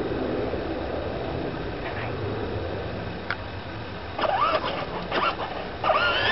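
18 V electric ride-on toy motorcycle running with a steady hum, with a click about three seconds in and a few short rising squeaks about four to five seconds in.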